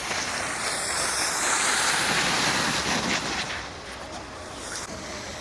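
Rushing wind noise on the microphone with the hiss of sliding over snow, loudest for the first three seconds, then easing off.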